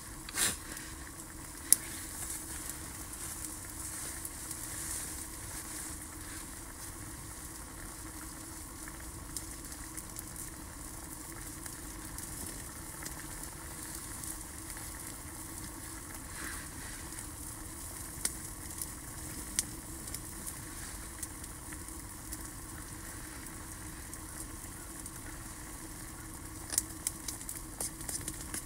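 A pot of food cooking over a small twig fire: a steady sizzling hiss with scattered crackles and ticks. A utensil clinks against the pot several times near the end as it is stirred.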